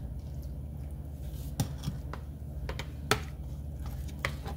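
Metal spoon stirring ceviche in a glass dish, scraping through the wet mix and clinking against the container a few times, over a steady low hum.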